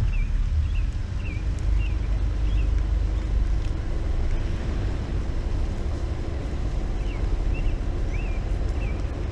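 A steady low rumble, with a songbird repeating short rising and falling chirps over it: a run of chirps in the first couple of seconds and another near the end.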